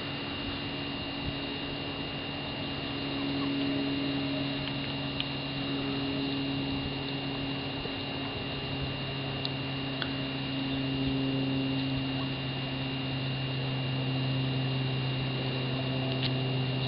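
A steady low hum with a faint high-pitched whine, broken by a few faint clicks.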